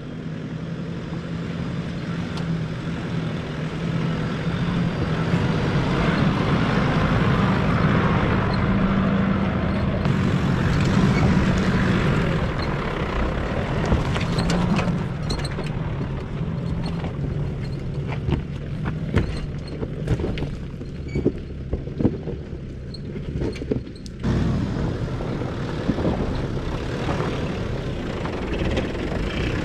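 Nissan GU Patrol's turbo-diesel engine pulling slowly up a rocky track, a steady drone, with many knocks and crunches of stones under the tyres in the second half.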